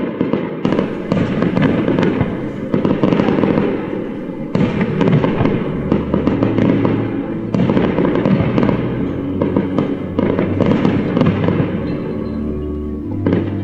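Fireworks going off in a dense, continuous crackle of many rapid pops and bangs. Orchestral string music comes in during the second half and grows stronger near the end.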